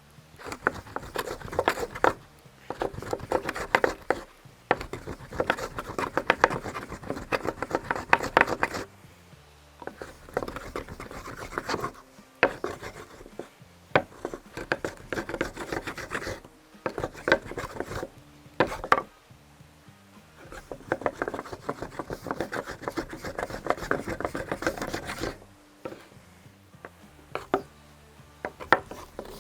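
Two wooden boards rolling a tight cotton-and-ash roll back and forth under hard pressure, a dry rasping rub that comes in long bouts with short pauses. This is the cotton-and-ash friction method: the roll is compacted and heated until it smoulders into an ember.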